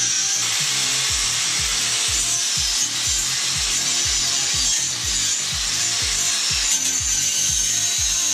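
A saw cutting steadily through a computer case with a continuous rasping hiss, over background music with an even, thumping bass beat.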